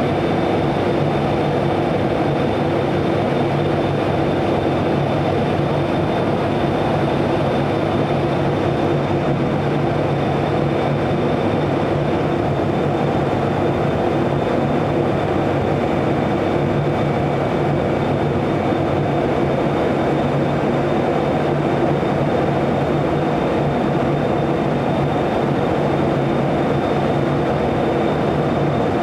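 KORAIL Class 8200 electric locomotive standing at the platform with its equipment running: a steady, even drone with a constant low hum and a faint high whine.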